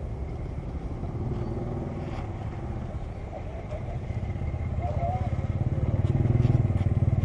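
Motorcycle engine running, a steady low rumble that grows louder over the last couple of seconds.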